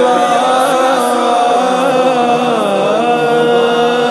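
Male voices chanting a naat in long, slowly wavering held notes without distinct words, several vocal lines layered at once.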